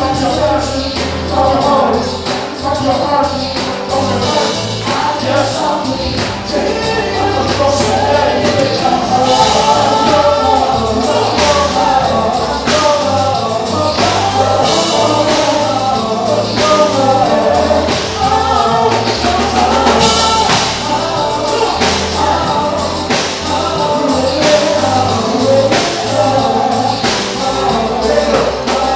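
Gospel music: singing voices over a band, with a steady drum beat.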